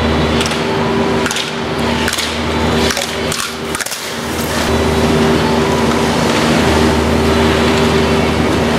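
Slalom gate poles struck by a passing skier: a run of sharp clacks through the first few seconds, densest a little before the middle, over a steady hum.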